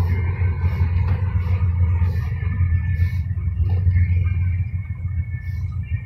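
Cabin noise of a three-axle Mercedes-Benz Travego coach cruising on a highway: a steady low rumble of engine and tyres on the road.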